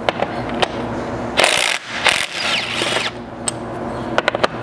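Cordless drill with a 12 mm socket running steadily to back out a factory roof-rack bolt, with short noisy bursts about one and a half and two seconds in.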